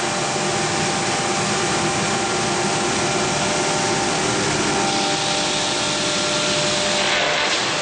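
Hammer mill running and grinding furniture wood waste: a loud, steady grinding noise over a constant machine hum. The grinding turns harsher from about five seconds in.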